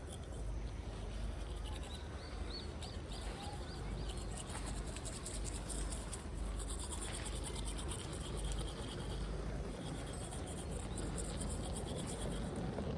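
Outdoor ambience while walking: a steady scratchy rustle and low wind rumble on the microphone, with a short series of high bird-like chirps about two seconds in.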